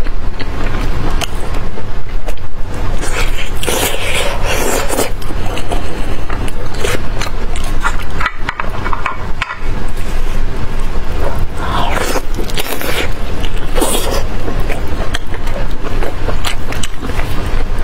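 Close-miked eating of a large piece of sauce-soaked braised meat: biting, chewing and tearing it apart with gloved hands. The sound is a run of many short, wet clicks and scrapes.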